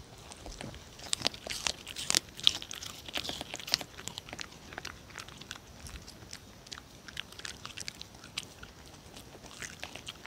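A dog chewing Korean melon rind: a quick run of sharp bites from about a second in for a few seconds, then slower, scattered chews, picking up again near the end.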